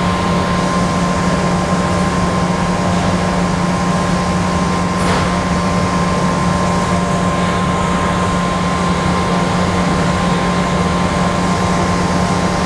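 Steady electric machinery hum: a low drone with a thin high whine above it, unchanging throughout. A faint click comes about five seconds in.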